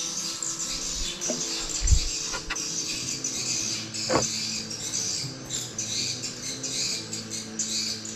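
Small birds chirping and squeaking continuously, with one brief louder call about four seconds in. A single dull thump comes about two seconds in.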